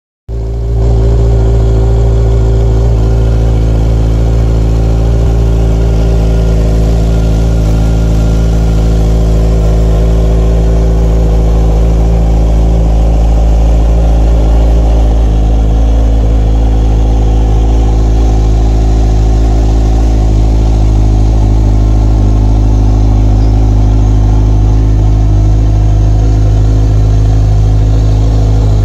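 Kawasaki Z1000's inline-four engine idling steadily.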